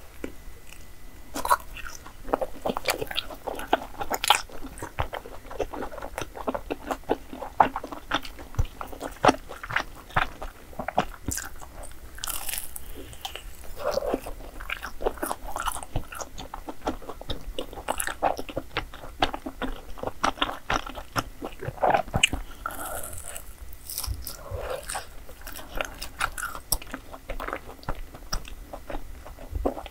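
Close-miked eating: a person biting into and chewing crisp-fried Korean street desserts, with many short, irregular crunchy crackles mixed with softer chewing.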